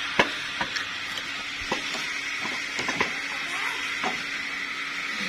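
A few light metallic knocks and clinks as the just-removed car AC compressor is handled and moved, over a steady background hum.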